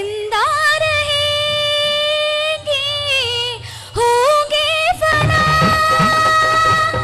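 A woman singing solo into a microphone, holding long notes with ornamented slides and vibrato. The voice breaks briefly about four seconds in, slides up into a new phrase and settles on another long held note.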